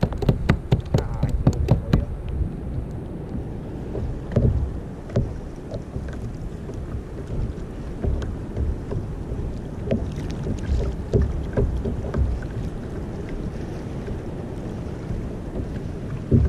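Wind buffeting the microphone and water slapping against a kayak hull, with scattered low thumps. In the first two seconds there is a quick run of sharp clicks, about four a second.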